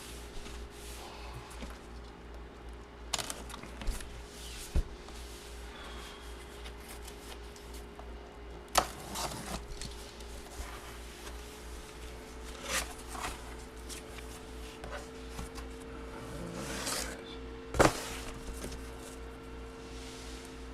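Packaging and photos being handled: scattered rustling, scraping and light clicks, with two sharp clicks, one about halfway through and one near the end, over a steady faint electrical hum.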